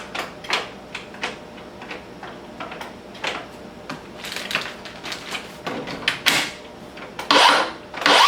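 Plastic clicks and knocks of 18V lithium-ion batteries being slid and latched into the Makita XPS01 track saw's two battery ports. Near the end the saw's motor starts and spins up briefly with a rising whine.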